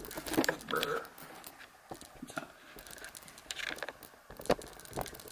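Handling noise from a camera and a sheet of paper being moved about: scattered clicks and taps with light rustling.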